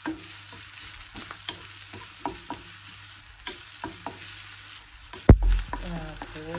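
Chopped onion and garlic sizzling in olive oil in a nonstick frying pan, with a wooden spatula stirring and clicking against the pan many times. A loud thump comes about five seconds in.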